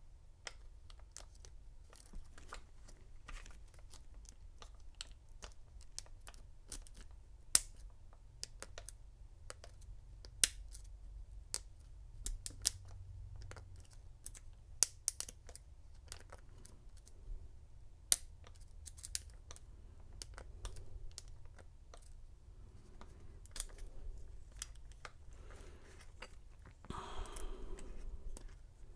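Hook pick and tension wrench working the pins in a Master Lock 930 padlock's keyway: irregular small metal clicks and ticks, a few of them much sharper than the rest.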